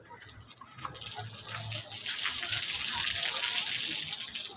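Water rushing and splashing as an Asian elephant, fed by a garden hose, sprays water from its trunk over its body. The hiss of water builds about a second in and then holds steady.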